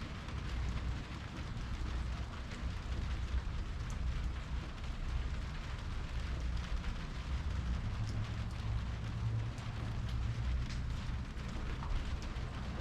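Rain falling, with scattered drops ticking on surfaces over a steady low rumble.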